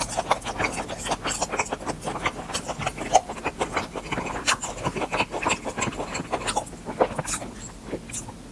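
Close-miked chewing and lip smacking while eating grilled beef intestines: a rapid, uneven run of clicks.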